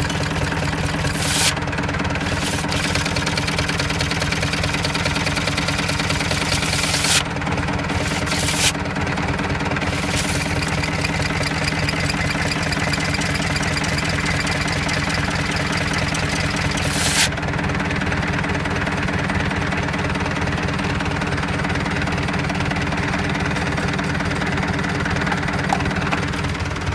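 Tractor engine running steadily, driving a secondhand replacement PTO clutch while the clutch is tested. A few brief, sharp noises break in over the engine.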